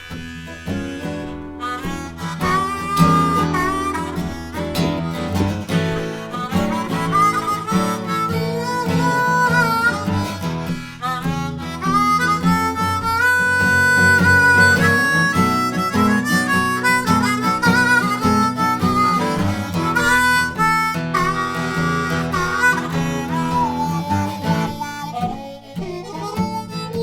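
Harmonica solo over acoustic guitar strumming, a blues-rock instrumental break.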